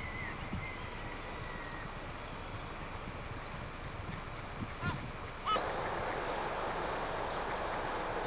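Outdoor background with birds calling faintly in short chirps and glides. About five and a half seconds in there is a sharp click, and after it the steady wind-like hiss is louder.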